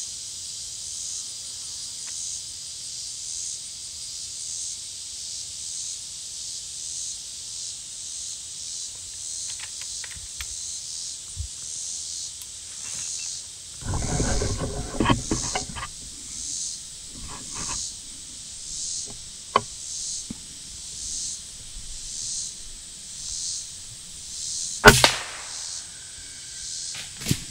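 A single sharp shot from a .22 FX Impact PCP air rifle about 25 seconds in, over a steady pulsing drone of insects in the trees. A stretch of rustling comes about 14 seconds in.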